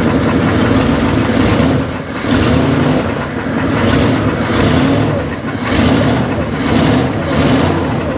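1961 Mercury Meteor's V8 engine running just after its first start on a newly installed carburetor and fuel pump. The throttle is blipped at the carburetor in about six short surges, each with a rush of intake air through the open carburetor.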